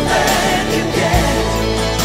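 Recorded song playing: a singing voice over a full band backing.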